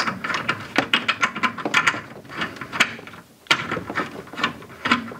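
Irregular clicks and scrapes of hands working the vacuum hose's threaded fitting onto a freeze dryer's vacuum port, with a brief lull about three seconds in.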